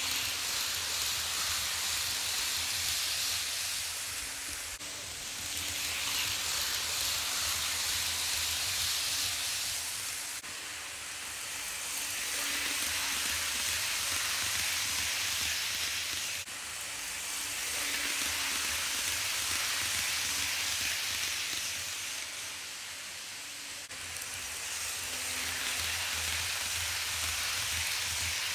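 An N scale Kato Amfleet train running on plastic Unitrack, its wheels rolling with a steady hiss over a faint low motor hum. The sound swells and fades as the train passes again and again, with abrupt jumps where the footage is cut.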